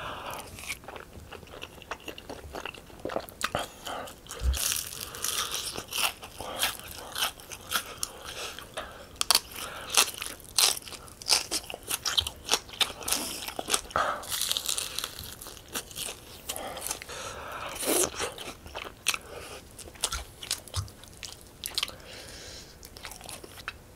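Close-miked eating: repeated crunching bites into crispy Honey Combo fried chicken and chewing of tteokbokki, in irregular crunches.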